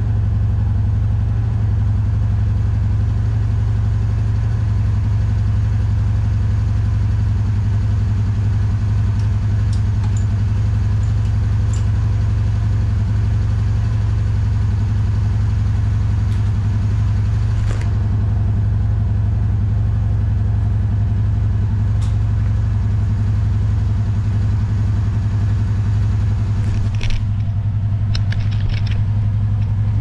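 Kawasaki Teryx4 800's V-twin engine idling steadily, with a few light clicks over the top.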